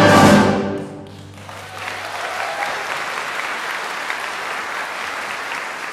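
A full orchestra's final held chord cuts off about half a second in and rings away in the hall, a low note lingering a little longer. The audience then breaks into applause that carries on steadily.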